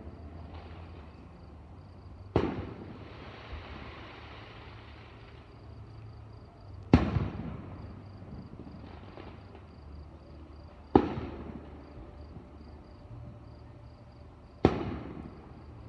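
Aerial fireworks shells bursting: four sharp booms roughly four seconds apart, each trailing off in an echo, the second the loudest.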